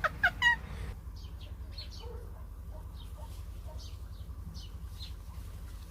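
Small birds chirping: a quick run of short rising calls right at the start, then scattered short high chirps.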